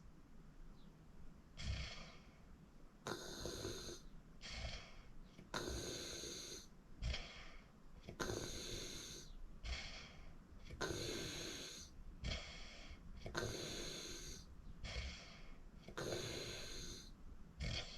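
A person snoring in their sleep in a steady rhythm, about one breath every two and a half seconds. Each loud snore has a high whistle in it and is followed by a shorter, softer breath.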